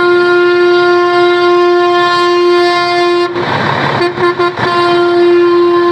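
A steady, unchanging horn-like tone with several overtones, held throughout; a little over halfway it is masked by a short burst of hiss and then breaks off briefly a few times before going on.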